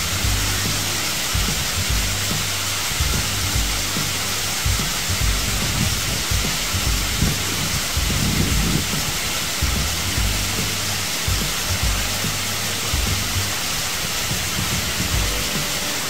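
Songlong Rock Waterfall: the steady, loud rush of falling water, an even hiss with low rumbles coming and going underneath.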